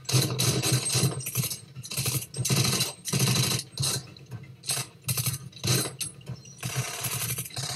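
Heavy gunfire exchange: burst after burst of rapid automatic fire, each about half a second long with short breaks between, mixed with single pistol shots.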